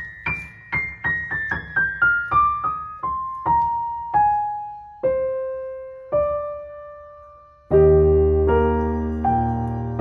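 Background piano music: a run of single notes falling step by step and slowing down, then a full chord with deep bass notes coming in near the end.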